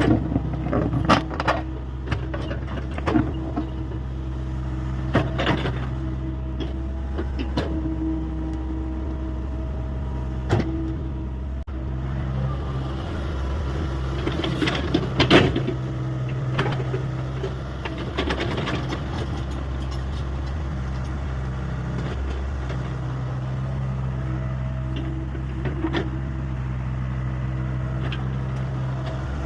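Hyundai 85A excavator's diesel engine running steadily at work, its note shifting a few times. Sharp clanks and knocks come and go over it, the loudest about halfway through.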